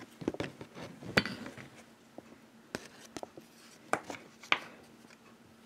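Scattered small clicks and light taps of fly-tying tools and materials being handled at the bench, about half a dozen spread irregularly with no steady sound under them.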